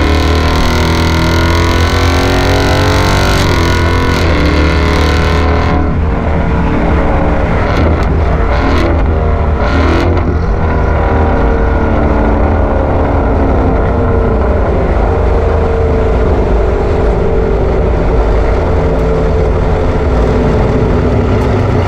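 Ford Mustang 5.0 GT's V8 through a Borla ATAK catback exhaust, under way. It accelerates with rising pitch for about five seconds, breaks off, then settles into a steadier cruising drone, with a few short gusts of wind noise in the middle.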